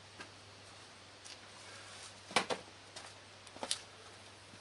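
A few scattered light knocks and clicks of someone handling things and walking in a garage, the sharpest about halfway through and another a little later, over a faint steady low hum.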